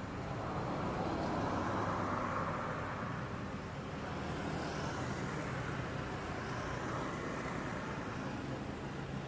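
Steady rush of distant road traffic with a low engine hum, a little louder for a couple of seconds near the start.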